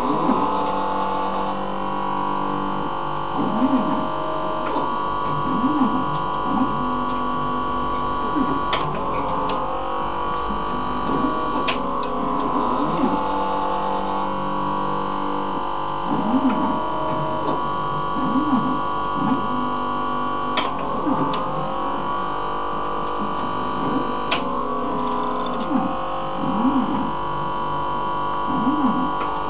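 Leica CV5000 automated coverslipper running: its stepper motors whine in short rising-and-falling sweeps as the conveyor and slide gripper move, over a steady machine hum, with sharp clicks every few seconds.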